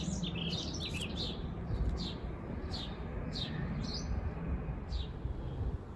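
Small garden birds chirping: short, high, downward-sliding notes every second or so, over a low steady background rumble.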